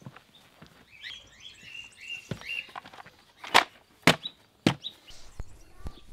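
Birds chirping in the background, and about halfway through three sharp plastic knocks as a red folding plastic stool is handled and set down, with a few lighter clicks of steps on a plastic step mat.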